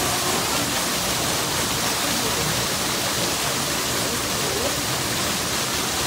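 A small waterfall pouring off a rock ledge and splashing below: a steady, even rush of falling water.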